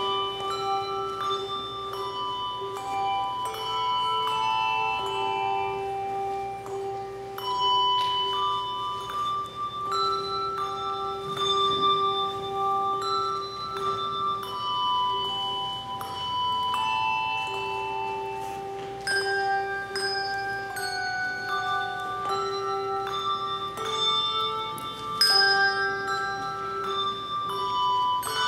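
Children's handbell choir ringing a melody: one bell after another is struck, each note ringing on under the next, while a lower bell sounds again and again beneath the tune.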